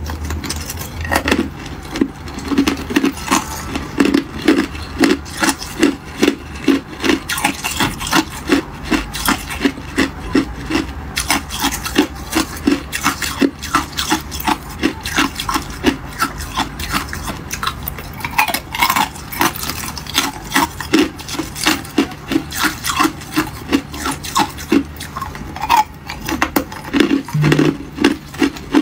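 Thin ice cubes being bitten and chewed: a fast, steady run of crisp crunches.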